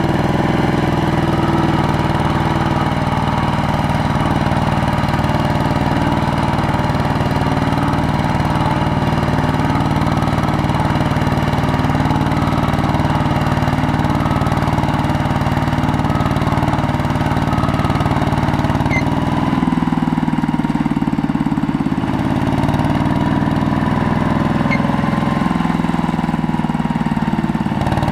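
Single-cylinder diesel engine of a two-wheel walking tractor running steadily under load while the tractor is bogged in deep mud with a loaded trailer. Its note shifts a few times in the last third.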